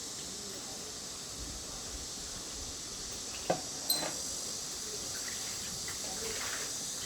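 Steady high-pitched hiss of background noise, with two short sharp clicks about three and a half seconds in.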